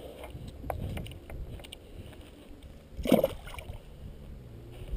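A bass splashing into pond water as it is released at the bank, a short splash about three seconds in. Wind rumble on the microphone and a few light handling clicks run underneath.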